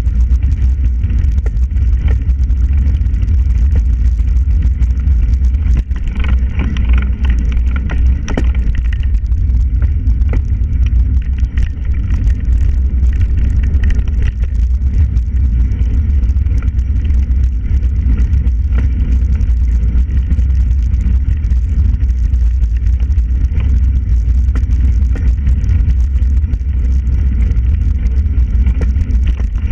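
Loud, steady low rumble of wind and road vibration on the microphone of a camera being ridden along a rough towpath, with scattered knocks and rattles from the bicycle and its mount.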